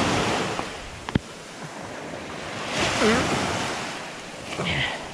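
Small surf waves washing onto the shore, swelling and fading, with wind on the microphone. A single sharp click comes about a second in.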